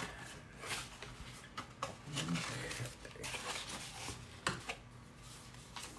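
Rustling and handling of a cardboard camera box and its paper packaging, with scattered light clicks and taps as the box end is opened and a bundle of papers is pulled out.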